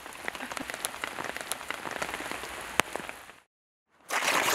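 Rain falling on a tent and its tarp, a steady hiss dotted with sharp drop ticks, one louder near three seconds in. It cuts off about three and a half seconds in, and near the end a brown paper bag is crumpled loudly.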